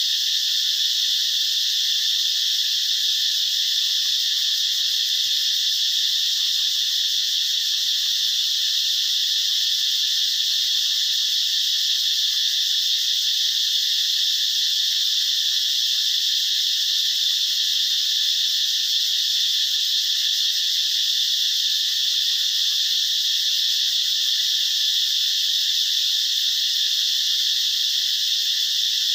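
A dense chorus of calling insects: a steady, unbroken high-pitched hiss with no pauses.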